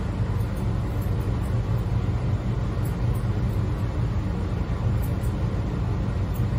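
Steady low machine rumble, with faint sharp snips of grooming scissors trimming the hair around a dog's paw every second or so.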